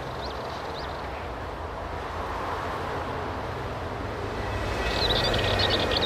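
Steady traffic rumble from the town below, rising slightly. About five seconds in, a Dartford warbler starts a fast, high, chattering song over it.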